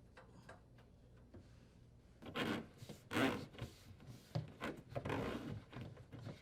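Dishwasher drain hose being worked free and pulled through the cabinet opening: a series of rubbing, scraping sounds that start about two seconds in, after a few faint ticks.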